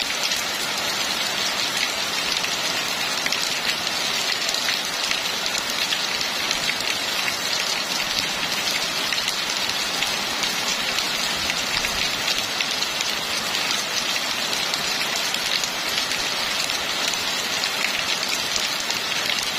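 Rain falling steadily on a flooded brick-paved street: a dense, even hiss of drops splashing on standing water.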